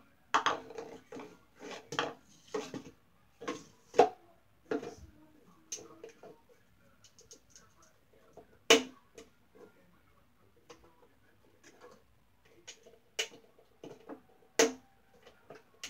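A cup knocking and scraping against a small wooden box as a pet bird shoves it at the doorway; irregular sharp knocks and taps, the loudest about 4 s in, near 9 s and near 15 s.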